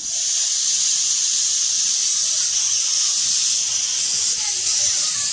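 1970-built Severn Lamb miniature steam locomotive's open cylinder drain cocks blowing steam: a loud, steady hiss that starts suddenly. The open cocks clear condensed water from the cylinders.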